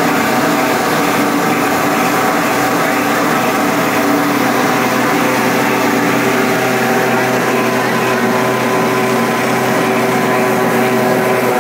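Plastic granule-making machine running steadily: the belt-driven pelletizer cutter and the extruder's motors give a loud, even machine hum with several steady tones.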